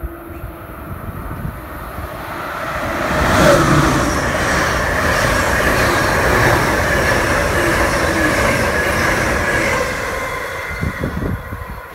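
Amtrak passenger train of stainless-steel Amfleet coaches passing at speed alongside the platform. Its rushing noise builds to a peak about three and a half seconds in, holds steady with a high tone over it as the cars go by, and fades as the train pulls away near the end.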